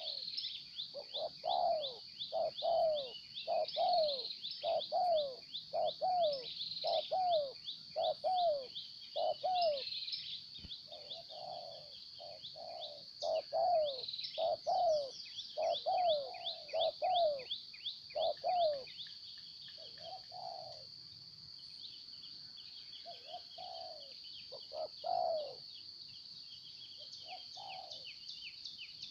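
Spotted doves cooing: a long run of short, repeated coos, about one or two a second, thinning to scattered coos in the second half. Under it runs a steady high-pitched buzz with fast chirping.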